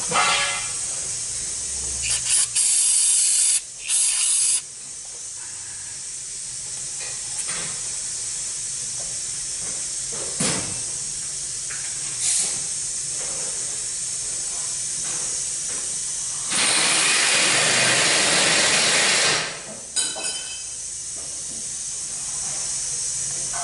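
Pressurised spray hissing in blasts over a steady background hiss: two short blasts a couple of seconds in and a longer one of about three seconds near the end. This is the cleaning of a Ford 6F35 transmission case's axle bore after the worn bushing has been cut out.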